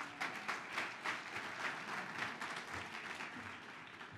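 Audience applauding: many hands clapping together, slowly dying down toward the end.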